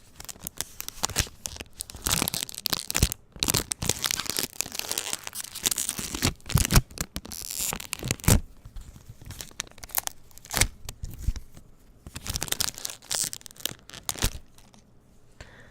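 A foil Pokémon trading-card booster pack being torn open by hand, with crackling rips and crinkling of the wrapper and several sharp crackles, dying away near the end.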